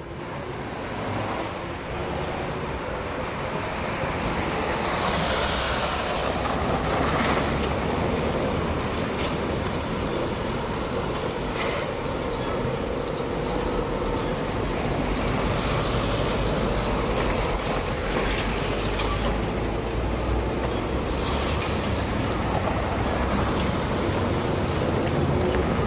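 Road traffic: a bus and cars driving past, a steady rumble of engines and tyres that builds over the first few seconds and then holds.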